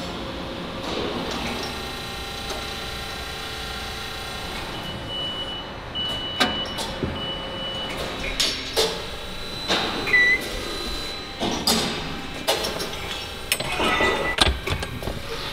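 Factory floor noise: a steady machine hum with several fixed tones, then from about six seconds in a run of metal clanks and knocks.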